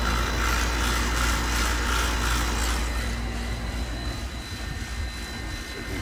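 The outdoor section of a DIY 120 V rotary-compressor heat pump running steadily: a compressor hum under the condenser fan, which the owner judges to sound pretty normal. It gets quieter about halfway through.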